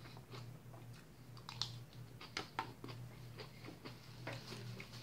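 Someone eating a leafy salad from a plastic takeaway container: faint, irregular clicks and crunches of a fork and chewing, over a low steady hum.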